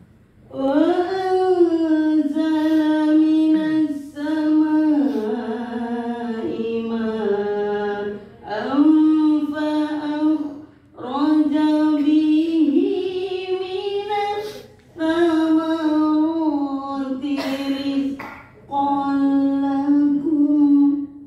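A woman reciting the Quran in a melodic chant (tilawah), holding long, wavering notes in about six phrases with short breaths between. Her voice is hoarse from a cough.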